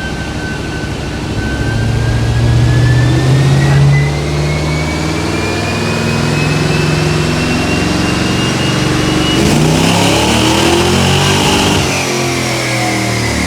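Car engine running under load on a chassis dynamometer, its speed slowly climbing while a thin whine rises steadily in pitch; the sound shifts about ten seconds in. The engine is being warmed up on the rollers.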